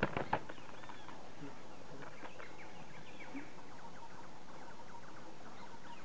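A woodpecker fighting a snake at a tree trunk: a quick cluster of sharp knocks and wing flaps at the very start, then faint, short, arched whistled bird calls now and then over a steady background hiss.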